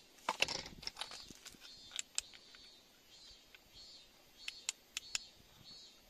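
Light, sharp clicks and clinks of a small steel hand tool tapping against a rough pink crystal held in the hand, coming in small clusters of taps with pauses between. Behind them a faint high chirp repeats a little faster than once a second.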